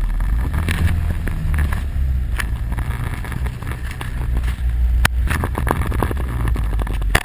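ATV quad bike engine running with a heavy low rumble that wavers in pitch, broken by several sharp knocks.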